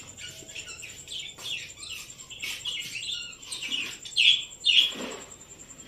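Parrots calling in a string of short chirps, with the two loudest calls about four seconds in.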